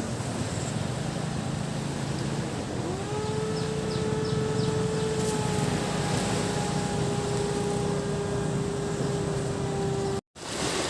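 Beach ambience of waves washing, with a motor engine whose pitch rises about three seconds in and then holds steady. The sound cuts out briefly near the end.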